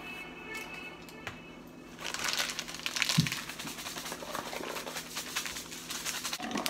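Background music, then from about two seconds in a small bag of Skittles and salt shaken vigorously: rapid crinkling with the candies rattling inside, and a dull thump about three seconds in.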